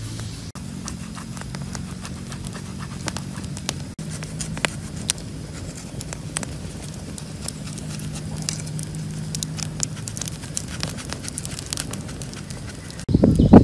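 Scattered light clicks and snaps of wooden sticks and bamboo strips being handled, over a low steady hum. About a second before the end a much louder crackling, rustling noise starts suddenly.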